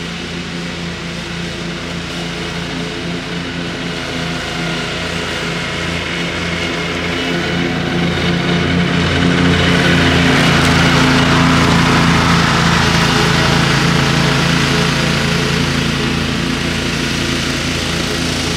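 Walker ride-on mower running steadily, growing louder as it comes closer, loudest about two-thirds of the way through, then easing slightly.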